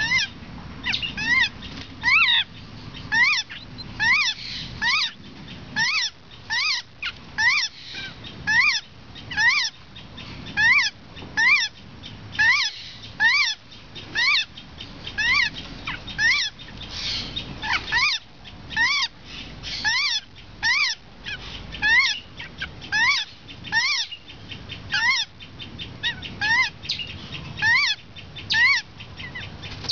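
White-crested laughingthrush chicks giving a steady run of short, rising-and-falling calls, about two a second, the loud repeated begging of young birds.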